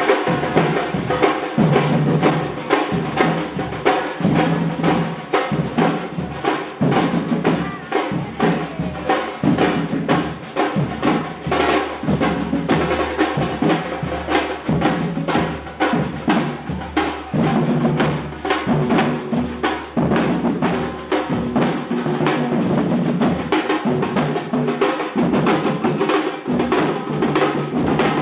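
A group of children playing drums in a dense, steady percussion rhythm that continues without a break.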